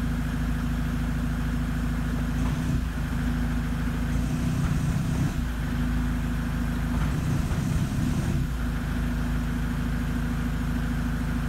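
Opel Zafira A's 2.0 four-cylinder turbodiesel (Y20DTH) idling steadily at about 900–1000 rpm, heard from inside the cabin.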